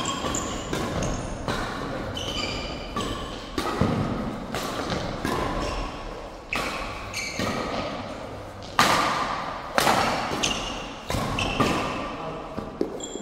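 Badminton rally: rackets striking the shuttlecock in quick back-and-forth exchanges, a sharp hit every half second to second, each ringing briefly in the hall. Short high squeaks come between the hits, from shoes on the court floor.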